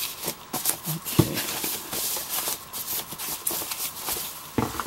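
White plastic protective bag rustling and crinkling irregularly as a digital photo frame is slid out of it, with a soft knock about a second in and another near the end.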